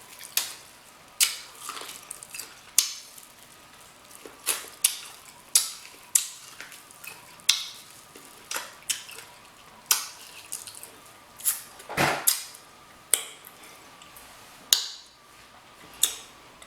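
Eating sounds from a king crab seafood boil mukbang: a string of sharp, wet clicks and smacks, about one or two a second, from chewing and handling crab and sauce. A louder burst comes about twelve seconds in.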